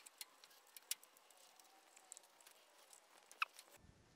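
Near silence with a few faint light clicks and rustles of hands fitting a rubber boot onto a Porsche accelerator rod, with one sharper click about three and a half seconds in.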